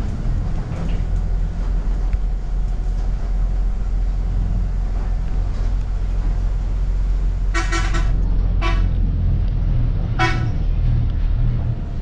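Bus engine running with a steady low rumble, and a vehicle horn honking three times in the second half: a longer blast, a short one right after, then another about a second and a half later.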